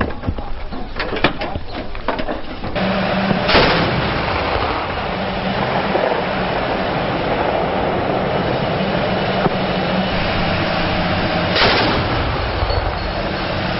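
Gunfire: several sharp shots in the first few seconds, then a steady heavy rumble with a low hum, broken twice by a loud blast about eight seconds apart.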